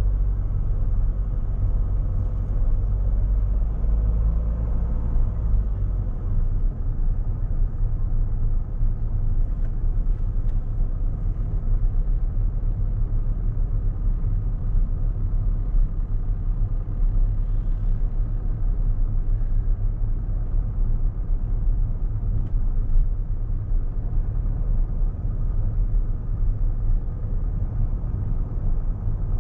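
A steady low rumble, with a faint steady hum above it.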